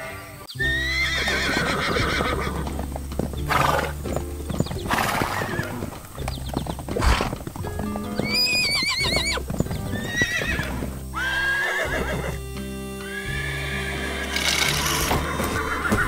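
Horses whinnying several times, the longest a trembling whinny about eight seconds in, over background music.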